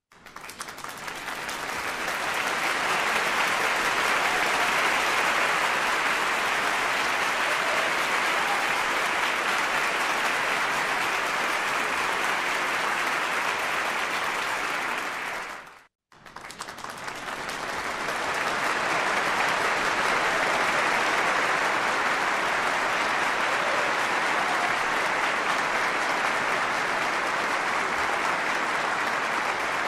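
Crowd applause: a steady wash of clapping that swells up over a couple of seconds, holds, then fades away about halfway through. After a brief silent break, a second round of applause builds up and carries on.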